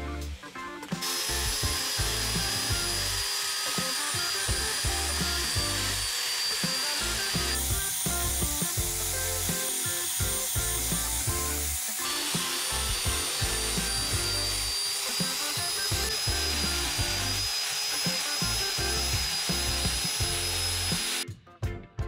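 Handheld angle grinder with a buffing wheel running steadily with a high whine, polishing a steel cleaver blade coated in polishing compound. It starts about a second in and stops suddenly near the end, over background music with a beat.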